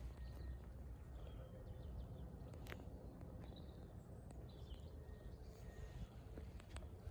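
Quiet outdoor background: a steady low rumble with a few faint bird chirps and one sharp click near the middle.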